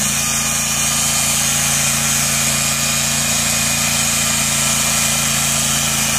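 Sawmill running steadily while its blade cuts through wood: a continuous engine hum under an even sawing noise.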